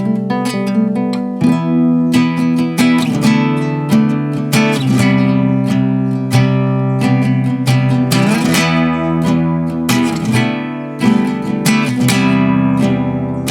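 Vogga Versalis Mini Jumbo nylon-string acoustic guitar being played: a continuous run of plucked notes and chords, each ringing on.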